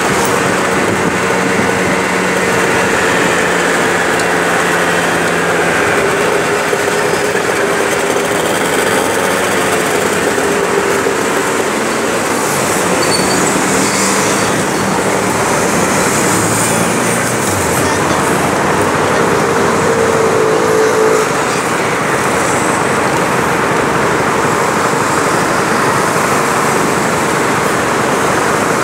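Steady city traffic noise around a 50cc Peugeot Jet C-Tech scooter, its engine running as it rides and then waits at a light while cars and motorbikes pass.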